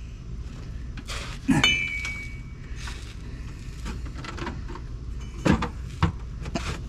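Scattered clinks and knocks of metal parts as a new clutch slave cylinder is worked into its hole in a Jeep TJ's transmission bellhousing; one knock, a bit over a second and a half in, rings briefly.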